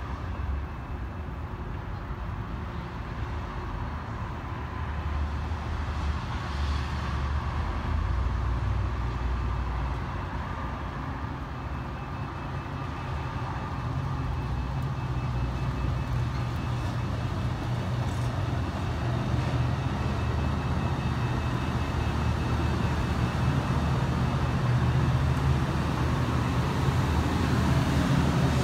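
Train rumbling, a steady low diesel drone with faint steady tones above it, growing gradually louder.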